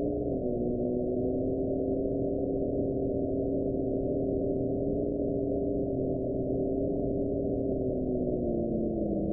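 Demodulated audio from a VLF radio receiver tuned near 11 kHz: a wind-like hiss carrying two steady tones that hold their pitch, then sag near the end and start to rise again. The signal is unidentified and not a logged VLF transmitter.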